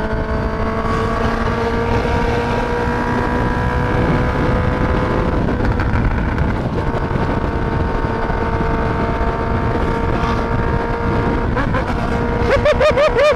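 Honda CB650F inline-four with a full stainless Atalla exhaust, running steadily at highway cruising speed, about 130 km/h, with wind rush on the microphone. The engine note holds nearly constant, wavering briefly near the end.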